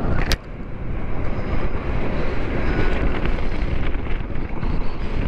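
Steady, loud wind buffeting and rushing air over the rider's microphone while riding the near-silent Zero DSR-X electric motorcycle at highway speed. A sharp click comes just after the start, followed by a brief dip in the noise.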